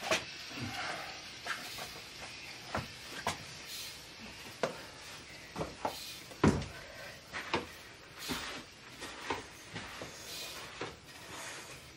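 Scattered knocks and creaks, a dozen or so at irregular intervals with the loudest about six and a half seconds in, from a padded weight bench and shoes on a concrete floor during seated banded hip abductions.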